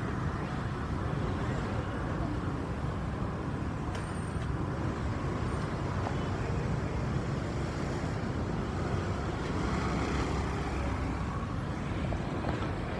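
Steady city traffic noise: the engines of cars and motorbikes in heavy road traffic, a continuous low rumble with no single sound standing out.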